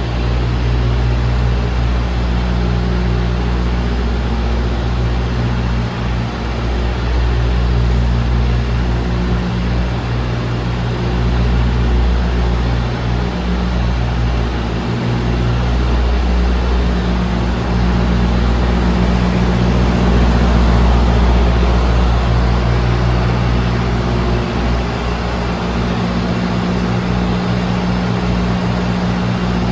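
Diesel engine idling steadily: a low, even hum with a rushing noise over it.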